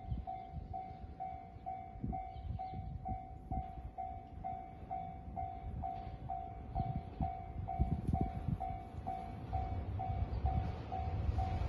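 Japanese railway level-crossing alarm ringing its electronic bell tone steadily, about two strokes a second, warning of an approaching train. A low rumble underneath grows louder near the end.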